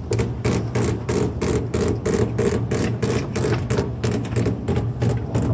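Chain hoist lowering a BMW N20 engine into the engine bay, clicking steadily about three times a second as the chain pays out.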